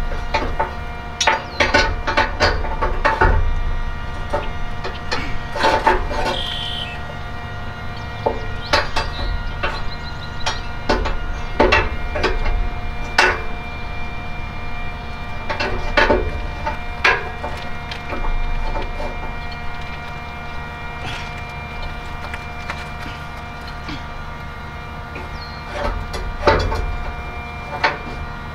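Electric drill running at a steady whine while boring through a metal chainplate, with irregular knocks and clicks from the bit and workpiece.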